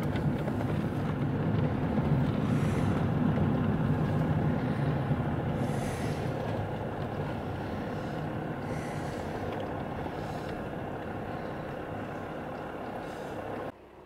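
Car driving on city streets, heard from inside the cabin: steady engine and road rumble, swelling slightly a couple of seconds in and easing off, then cutting off suddenly near the end.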